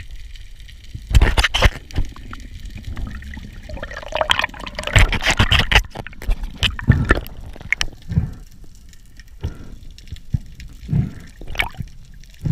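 Water rushing and gurgling over an underwater camera on a speargun, in irregular bursts with a few sharp knocks.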